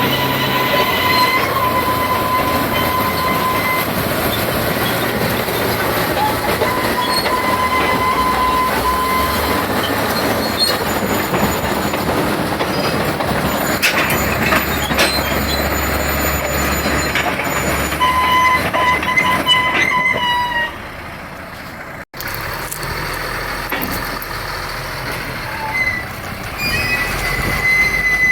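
Caterpillar D7R crawler bulldozer running, with a steady machine rumble and a high metallic squeal that comes and goes from its steel tracks. Near the end it drops quieter, with an abrupt break.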